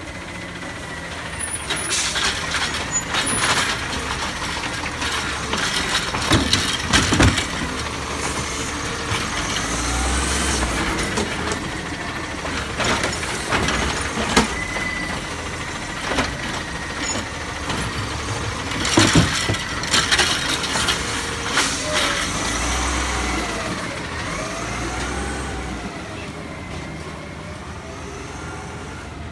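Automated side-loader garbage truck emptying curbside carts. The diesel engine runs and revs as the hydraulic arm lifts and tips the carts, with sharp bangs of carts and lids against the hopper, rising-and-falling hydraulic whines, and air-brake hisses.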